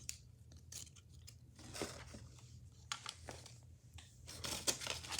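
Faint rustling and crinkling of small plastic packaging bags, with scattered light clicks of small plastic toy pieces being handled, getting busier near the end.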